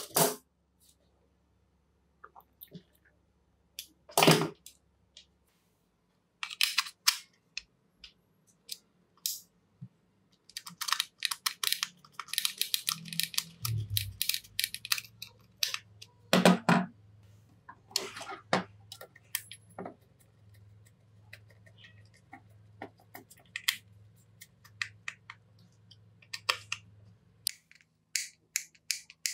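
Hand work on metal power-tool parts: scattered clicks, taps and short rattles, with a few louder knocks, one right at the start, one about four seconds in and one past the middle. A faint low hum runs under the second half.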